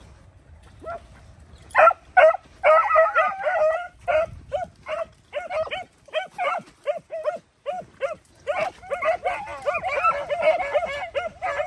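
Beagle-type rabbit hounds baying in quick, short barks, starting about two seconds in, with several voices overlapping toward the end: the pack giving tongue as it works a rabbit's scent.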